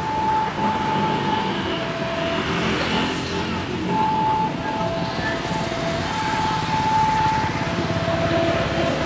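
City street traffic, with cars and motorbikes driving past. Over it a two-note tone keeps switching back and forth between a higher and a lower pitch, with uneven lengths.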